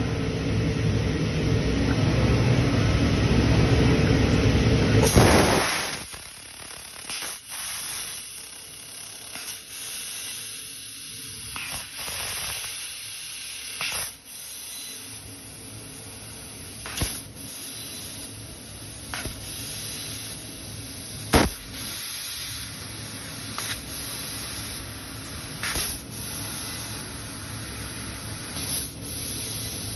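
CNC fiber laser cutting 4 mm galvanized steel sheet: a steady hiss of assist gas with scattered pops and crackles, one sharp crack about three quarters of the way through. For the first five seconds a loud low rumble covers it, then stops suddenly.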